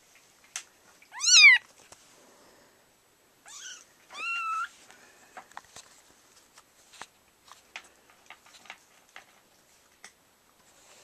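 Kitten meowing: a loud high meow that rises and falls about a second in, then two more shorter meows around the fourth second, followed by a scatter of small clicks and taps.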